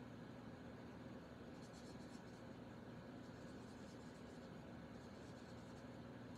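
Faint scratching of an alcohol marker's tip on cardstock in short colouring strokes, coming in two spells, over a steady low hum.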